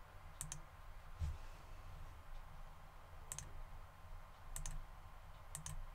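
Computer mouse buttons clicking faintly: a few short clicks, mostly in quick pairs, about half a second in and again several times in the last three seconds. A soft low thump comes about a second in.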